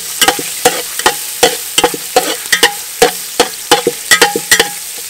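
Metal spatula scraping and clinking against the bottom and sides of a metal pot about three times a second as minced aromatics are stirred in oil, some strokes leaving a short metallic ring. A steady hiss of oil sizzling runs underneath.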